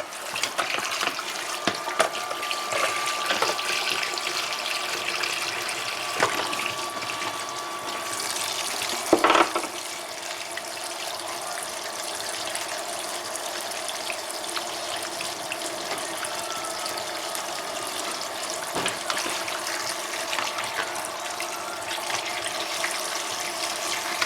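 Kitchen tap running steadily into a sink as raw chicken breasts are rinsed under it, with a few light knocks and one louder brief clatter about nine seconds in.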